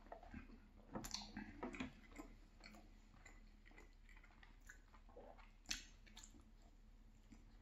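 Faint chewing of soft marble cake, with small wet mouth clicks. There is a cluster of louder clicks about a second in and one sharp click near six seconds.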